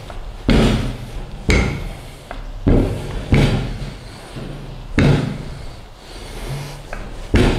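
Wooden rolling pin rolling out shortcrust pastry on a stainless-steel worktop: a run of about six loud knocks, each dying away quickly, a second or so apart, over a low rumble of rolling.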